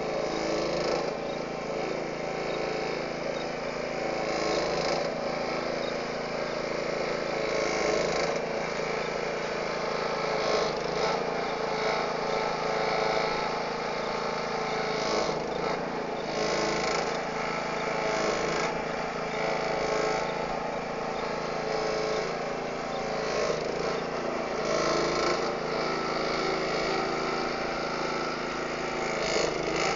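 Engine of a bitumen spraying truck running steadily while the road base gets its prime coat, with a hiss over it that swells and fades every few seconds.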